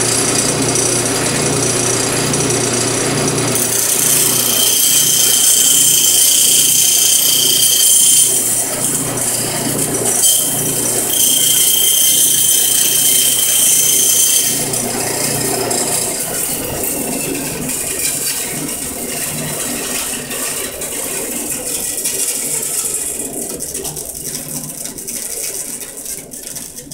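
Band saw running and ripping a test board along a pencil line, the blade cutting into the wood from about four seconds in to about fourteen seconds in. Afterwards the saw's sound dies away gradually toward the end. The cut is a test cut made to find the blade's drift angle.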